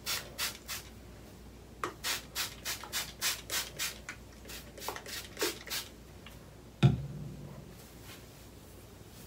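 Handheld plastic spray bottle squirting onto hair in quick repeated sprays, about three a second, in several runs. One sharp thump comes near the end.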